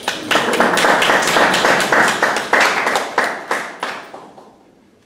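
Small audience applauding, with some claps close by; the applause dies away about four seconds in.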